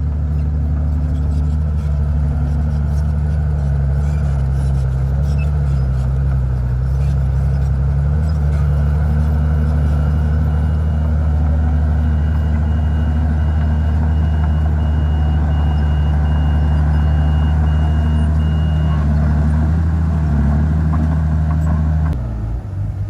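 Heavy diesel engine of a Komatsu D51PX bulldozer working steadily under load, its pitch shifting slightly, with a backup alarm beeping about once a second through the middle. The engine sound changes abruptly near the end.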